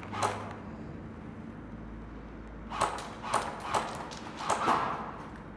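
A series of sharp knocks or cracks: one about a quarter second in, then five or six more in quick, uneven succession in the second half.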